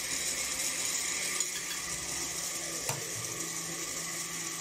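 A utensil stirring and scraping ingredients inside a blender jar, over a steady hiss, with a single sharp knock about three seconds in.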